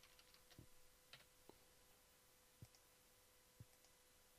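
Near silence with faint, scattered clicks of a computer mouse and keyboard keys, several in a short cluster near the start, then single clicks about a second apart, over a faint steady hum.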